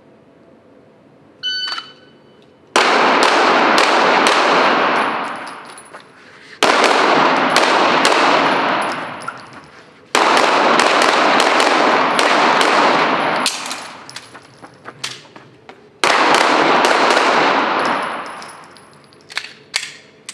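A shot timer beeps once, then a Smith & Wesson M&P 2.0 9mm pistol fires four strings of rapid shots, each string ringing on in the echo of an indoor range. A few light clicks follow near the end.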